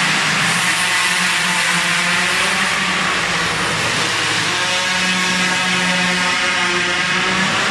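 Minimoto pocket bikes' small two-stroke engines buzzing at high revs as the bikes lap, the pitch rising and falling with the throttle.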